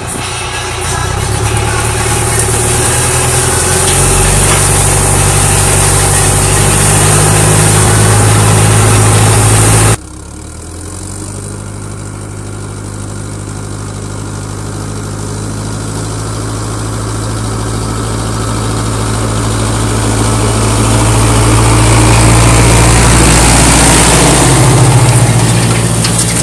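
Zetor 8011 tractor's diesel engine running steadily under load while pulling a Rolmako stubble cultivator, heard close up. About ten seconds in the sound cuts, and the tractor then approaches across the stubble, growing steadily louder as it comes right up to and past the listener.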